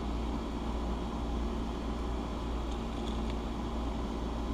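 Steady low background hum like a fan or air conditioner, with a few faint light clicks a little under three seconds in.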